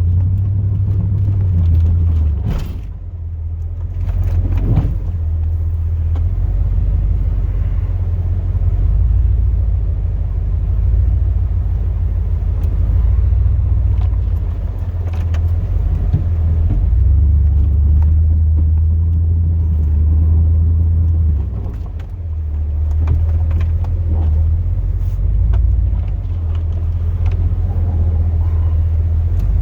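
2002 Chevrolet Silverado's 8.1-litre big-block V8 running as the truck drives, a steady low rumble, with a couple of brief knocks a few seconds in.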